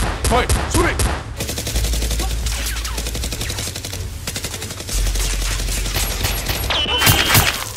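Automatic gunfire sound effects dubbed over toy blasters: rapid shots, about five a second at first, turning into denser continuous fire about a second and a half in, with a short high whine near the end.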